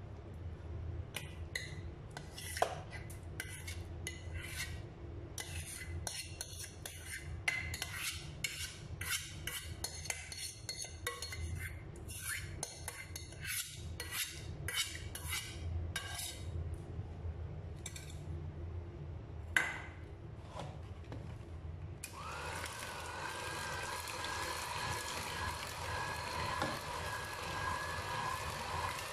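A metal spoon scraping and clinking against a stainless-steel saucepan, scooping out thick cooked dates. About three quarters of the way through, an electric hand mixer starts and runs steadily, beating the batter.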